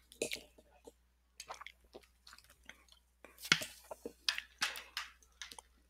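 Irregular soft clicks and crackles close to a microphone, coming in quick clusters with short pauses between them.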